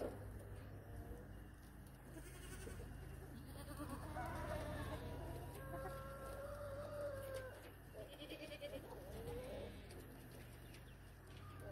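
Faint calls from chickens in the yard: scattered warbling calls in the middle, with one drawn-out call of a second or so, over a low steady hum.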